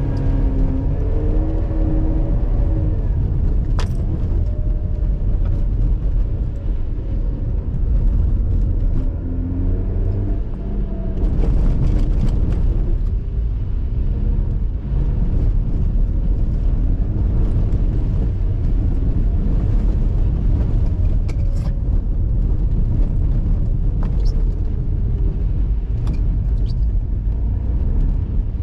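Mazda RX-8's 1.3-litre two-rotor Renesis rotary engine, heard from inside the cabin at track pace. Its revs climb and drop again several times over a constant low rumble, with a few brief sharp ticks.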